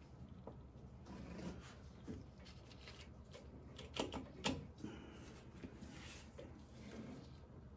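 Faint metal handling of a timing chain and its sprockets on the front of a small-block engine, with two sharp metal clicks about half a second apart in the middle.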